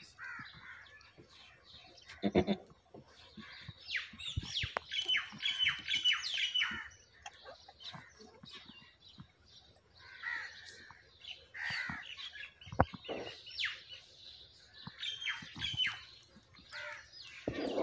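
Small birds chirping and twittering in quick clusters of high trills, with a short, low, loud call about two seconds in, likely from the goat.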